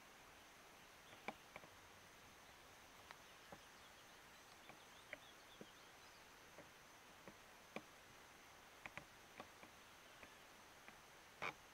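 Near silence: a faint, steady high-pitched insect drone with scattered small sharp clicks, the loudest near the end.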